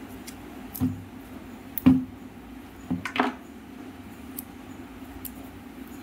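Handling of a roll of electrical insulation tape while wrapping wire joints: a few short knocks and scrapes, the loudest about two seconds in, and a brief rasp of tape pulled off the roll about three seconds in, over a steady low hum.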